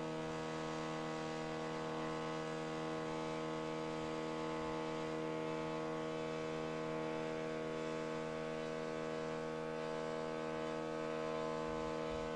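Open-loop stepper motor driving the CNC mill's Y axis at a steady 10 inches per minute. The axis gives a steady buzzing hum of several pitches at once. This is audible machine vibration from the stepper's torque ripple.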